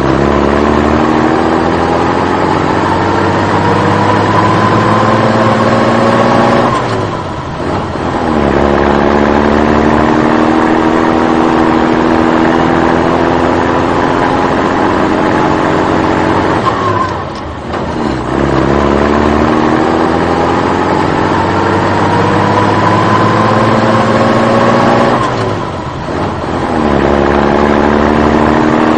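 A vehicle engine accelerating, its pitch rising slowly over several seconds, then running steadily. It dips briefly three times, about seven and a half seconds in, near the middle and near the end, like an engine pulling through gear changes, and the whole rise-and-cruise pattern repeats.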